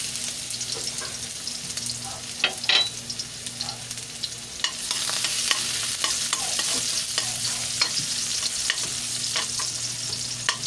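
Minced garlic sizzling in hot cooking oil in a wok, with a spatula scraping and ticking against the pan as it is stirred. The sizzle grows louder about five seconds in.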